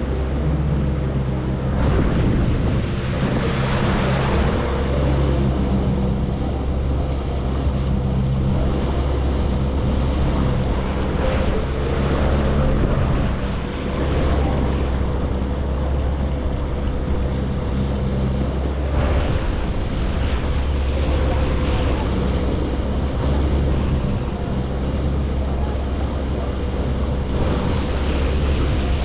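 Jet ski running steadily under way over open water, its engine and pump drone mixed with rushing water and heavy wind on the microphone. The water-and-wind noise swells now and then.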